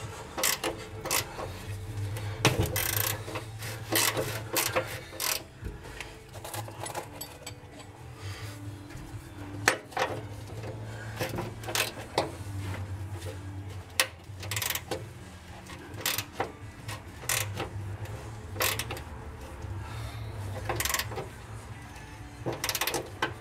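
Hand wrench working rusted, seized inner-fender bolts on a 1949 Chevy 3100 pickup: irregular metal clicks and clinks as the wrench is fitted, turned and repositioned, over a low hum. The bolts are rusted enough that they snap rather than turn loose.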